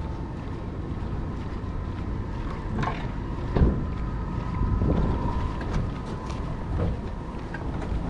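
Wind rumbling on the microphone of a body-worn GoPro action camera, over city street traffic, with one short thump about three and a half seconds in.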